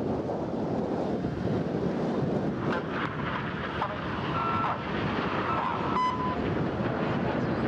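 Steady rumble of a formation of BAE Hawk T1 jets flying overhead, mixed with wind on the microphone. A short faint beep comes about six seconds in.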